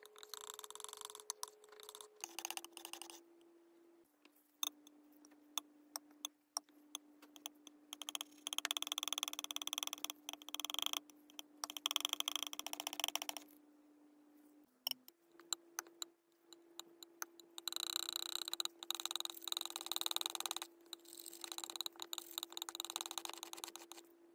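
Thick acrylic paint being stirred and smeared with a brush: wet, sticky squishing full of small clicks, coming in stretches with quieter pauses between.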